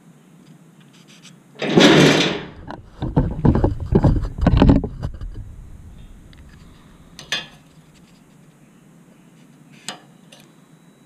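Hand tools and steel frame tubing clattering and knocking on a steel workbench: one loud clatter about two seconds in, a run of heavy knocks over the next few seconds, then two single sharp clicks as the combination square is set down.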